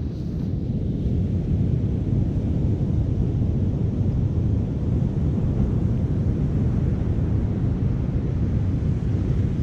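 Wind buffeting the microphone: a steady, loud low rumble that swells slightly about a second in.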